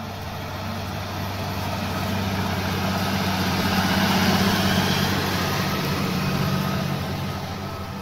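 New Holland T7.235 tractor's six-cylinder diesel engine running under load while pulling a five-furrow plough through hard ground. It grows louder as the tractor passes close about four seconds in, then fades.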